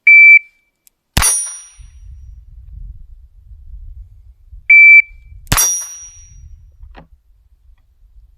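A shot-timer beep, then about a second later a single shot from an Alfa Proj 2261 .22 LR revolver with a high ring from the steel plate target. The same sequence repeats: a second beep a little before halfway, and a second shot and ring about a second after it.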